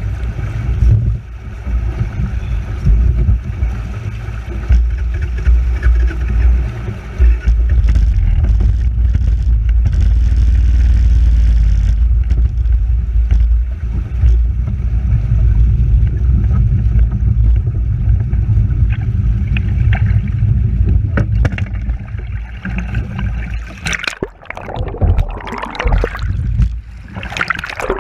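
River water rushing and splashing around an ATV caught in the current, under a heavy, continuous low rumble. In the last few seconds it turns to choppy sloshing and gurgling, heard from under the water.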